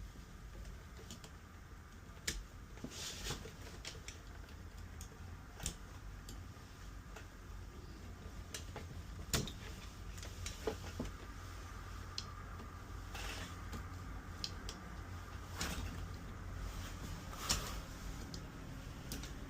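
Scattered light clicks and taps from hands and tools handling the espresso machine's parts during disassembly, a few seconds apart, over a low steady background rumble.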